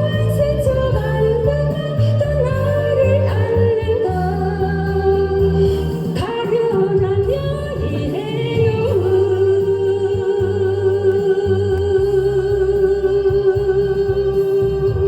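A singer performing a Korean trot song over backing music with a steady bass line, holding one long note with vibrato from about nine seconds in.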